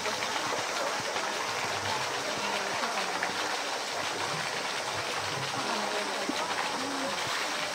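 Steady rush of running water in a polar bear pool, with faint voices in the background.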